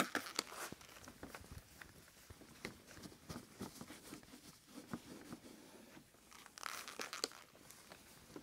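Microfiber towel rubbing and rustling across a plastic headlight lens as polishing compound is wiped off: faint, scattered crinkling scrapes, with a louder rustle about two-thirds of the way through.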